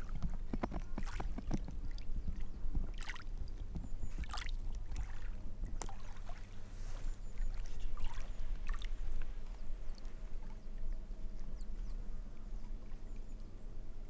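Lake water lapping and sloshing in small, irregular splashes.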